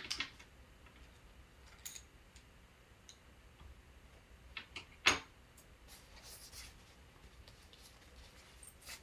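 Tools being handled and sorted in a tool bag: scattered light clicks and clinks, with one sharper knock about five seconds in and a little rustling after it.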